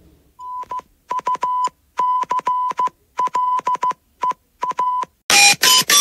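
Mock emergency alert alarm: electronic beeps at one steady pitch, short and long tones in uneven groups like Morse code. About five seconds in, a louder run of beeps jumping between different pitches begins.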